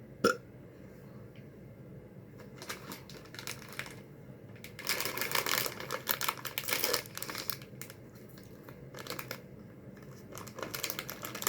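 A sharp click just after the start, then candy packaging crinkling as it is handled and opened, in crackly spells about three and five seconds in and again near the end.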